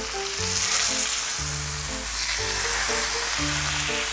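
Tomahawk steak sizzling on an electric grill plate, over background music.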